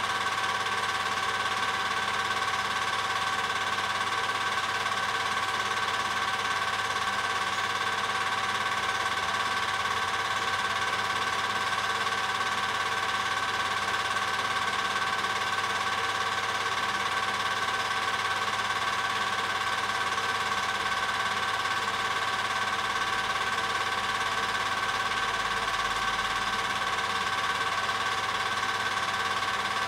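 Film projector running: a steady mechanical whirr with constant high whining tones and a low hum, unchanging throughout.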